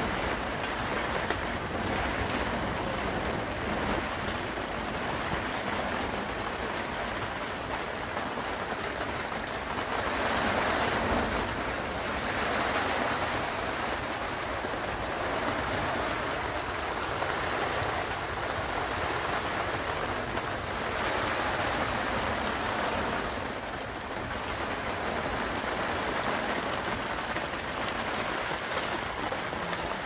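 Rain falling on plastic sheeting, a steady hiss that swells a few times, loudest about a third of the way in.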